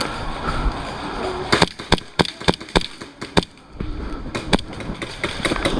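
Airsoft guns firing: a dozen or so sharp cracks in an irregular string, most about a second or two in and a few more near the end, over low rumbling handling noise.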